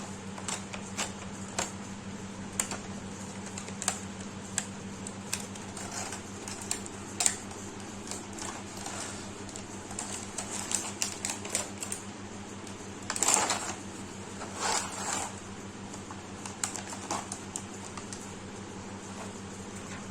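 Handling of a toy RC helicopter's packaging during unboxing: scattered sharp clicks and taps, with two longer crinkly rustles about two-thirds of the way through, over a steady low hum.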